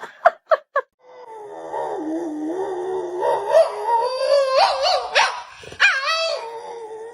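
Dog howling: three short yips, then one long, wavering howl that breaks and jumps up in pitch a few times.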